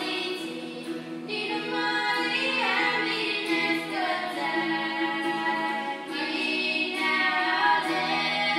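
Background music: voices singing a melody over sustained low notes.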